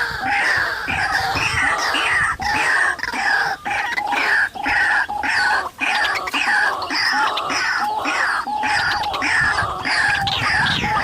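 White-breasted waterhens (ruak-ruak) calling: a harsh, repeated "kru-ak" of falling notes, about two a second, kept up without a break.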